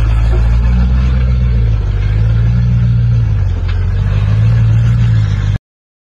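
Rock-crawling buggy's engine pulling at low revs as it climbs over boulders, the revs swelling three times. The sound cuts off suddenly near the end.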